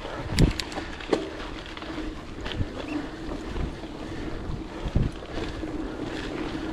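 Wind rushing over the microphone and the knobby tyres of a Scott Spark mountain bike rolling over a dirt trail, with a few sharp clacks and rattles from the bike over bumps, the clearest in the first second or so and another a little before the end.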